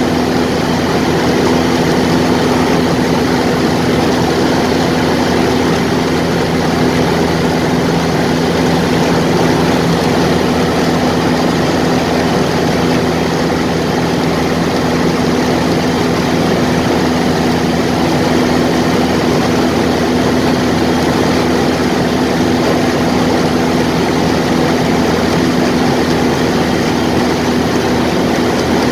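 Ercoupe light airplane's piston engine and propeller running steadily in flight, heard from inside the cockpit: a constant drone with a strong low hum.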